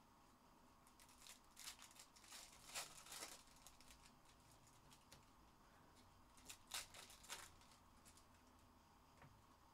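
Faint crinkling and tearing of trading card pack wrappers, in scattered short rustles, the loudest about three seconds in and again near seven seconds.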